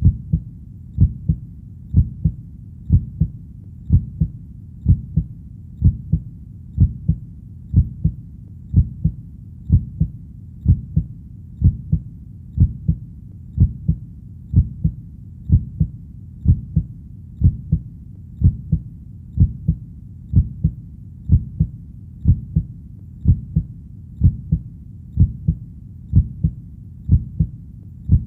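A heartbeat beating steadily at about one beat a second, each beat a deep double thump (lub-dub).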